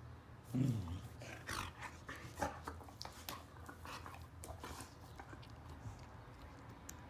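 Border collie giving a short low grumble that falls in pitch, then a run of wet mouth clicks and licking sounds as he mouths and picks at a piece of raw meat on a tile floor.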